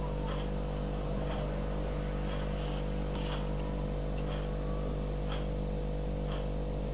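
A steady low hum made of several fixed tones, with faint short high chirps or clicks about once a second.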